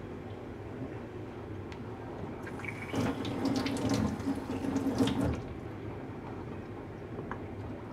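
Water running into a stainless-steel sink for about three seconds, starting a couple of seconds in and stopping sharply, with a steady ringing note from the steel basin.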